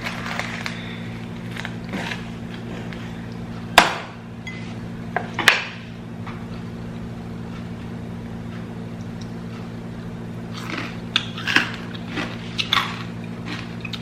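Kitchen clatter: a few sharp knocks and clicks of dishes or utensils being handled, the loudest two about four and five and a half seconds in and a quicker cluster near the end, over a steady low hum.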